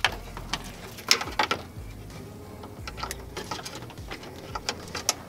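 Aftermarket light wiring harness being handled and laid out across an engine bay: irregular rustling with several sharp clicks and ticks of wires and connectors.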